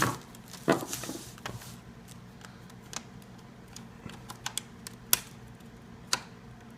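Scattered sharp plastic clicks and taps from a laptop's plastic case and parts being handled and pried at, a few louder knocks near the start and about five and six seconds in.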